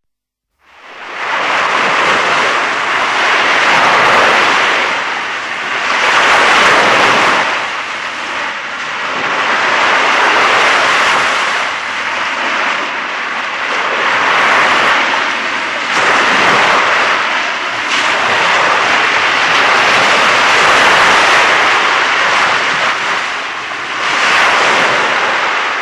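Electronic keyboard sound-effect voice playing a loud, continuous rushing noise like a passing aircraft, starting abruptly and swelling and easing every few seconds.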